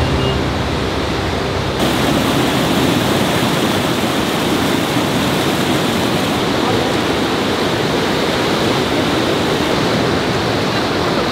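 A fast mountain river rushing over boulders and rapids: a steady, loud, even hiss of water that grows fuller about two seconds in.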